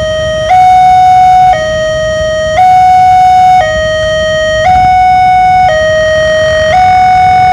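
Newly installed railway level-crossing warning siren sounding loudly in a two-tone hi-lo pattern, switching between a higher and a lower tone about once a second.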